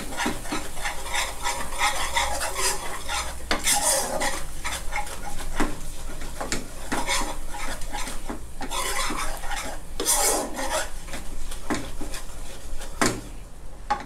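A metal ladle stirring and scraping thick salted egg yolk sauce around a non-stick frying pan in quick, irregular strokes, with the sauce sizzling softly on the heat.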